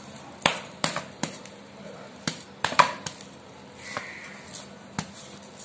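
Pulp-coated palmyra palm fruit seeds being beaten against each other: a series of irregular knocks, about seven clear strikes. The beating loosens the fibrous pulp so its juice comes out easily.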